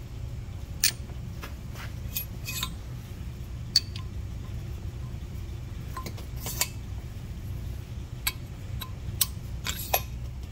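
Light metallic clicks and taps, a dozen or so at irregular intervals, as a steel valve is slid into its new guide and seated in a Mopar 360 cylinder head, the sharpest about four seconds in. A steady low hum runs underneath.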